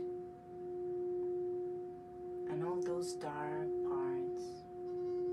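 Metal singing bowl ringing with one steady, pure tone that swells and fades about every two seconds. A wordless voice sounds briefly over it from about two and a half seconds in.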